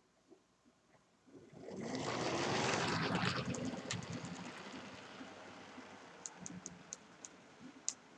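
Model train running past on the track: a whirring rush that swells to its loudest about two to three seconds in, then slowly fades. Near the end there is a run of light clicks.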